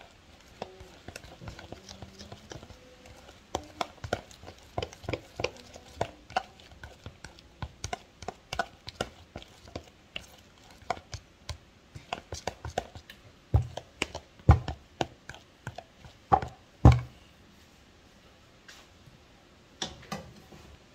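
Irregular taps and knocks of kitchen utensils during food preparation, a few a second. Several heavier thumps come about two-thirds of the way through, then the tapping thins out.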